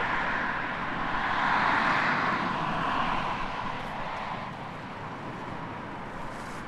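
A passing vehicle, its noise swelling over the first two seconds and fading away by about four and a half seconds in.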